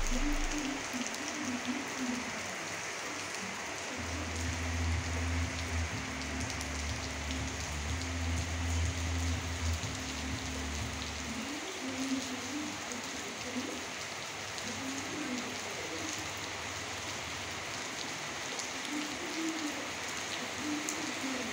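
Rain falling steadily on leaves and on a wet concrete yard, an even hiss throughout. A low steady hum runs underneath from about four seconds in until about eleven seconds in.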